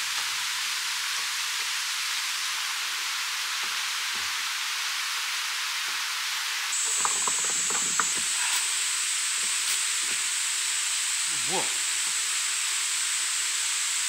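Damp forest ambience: a steady, even hiss. About seven seconds in, a continuous high-pitched insect drone joins it, with a few faint knocks along the way.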